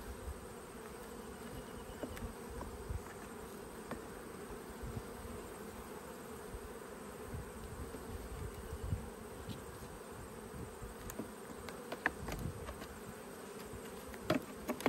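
Steady hum of a large honeybee colony swarming over an open hive and the frames lifted from it. Near the end, a few sharp clicks of a metal hive tool against the wooden frames.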